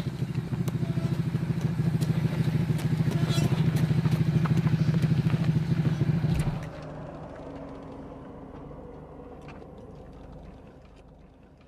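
Harley-Davidson V-twin engine running with a steady, fast lumpy pulse, which stops abruptly about six and a half seconds in. After that only a much quieter low sound with a few faint clicks remains.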